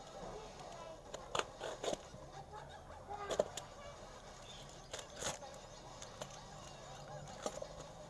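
Scattered sharp clicks and knocks from a small item and its packaging being handled during an unboxing.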